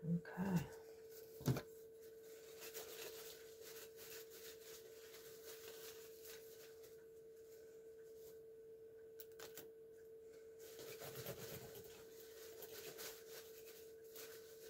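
Faint scratching, rustling and light taps of small die-cut paper and foil pieces being picked out of a metal stained-glass cutting die, with one sharp tap about a second and a half in. A steady faint hum runs underneath.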